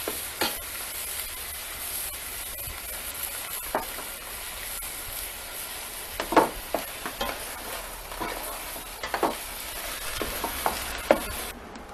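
Ground beef and soy frying in an enamel pot: a steady sizzle, with a spoon scraping and knocking against the pot as the meat is stirred every few seconds. The sizzle cuts off near the end.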